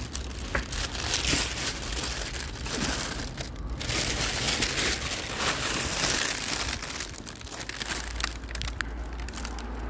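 Handling noise: rustling and crinkling as material rubs against the microphone of a hand-held phone while its user walks through a doorway, with many small knocks and clicks and a low rumble.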